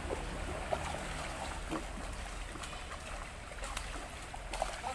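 A hooked freshwater pomfret (bawal) thrashing at the surface of a fishpond as it is played on a rod, with a steady wash of churned water and irregular sharp splashes.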